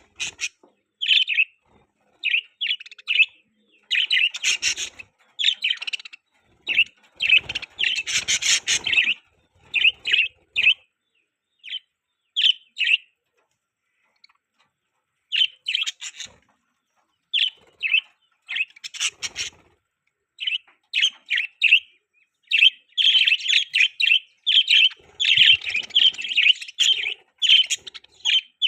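Budgerigars chirping in short bursts of quick, high chirps with brief pauses between, busiest about eight seconds in and again over the last few seconds.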